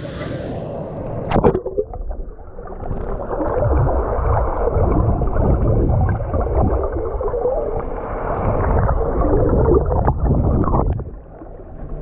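A splash as the camera goes under the sea water about a second and a half in, then muffled underwater gurgling and rushing of water around the submerged camera, which drops away near the end as it comes back up.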